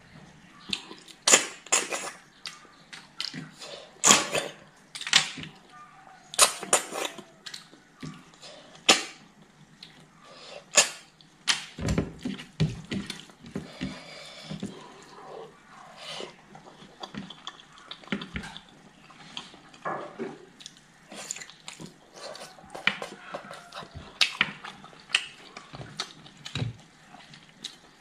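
Close-up eating sounds: wet chewing and sharp lip smacks at an irregular pace, about one or two a second, from a person eating porridge by hand.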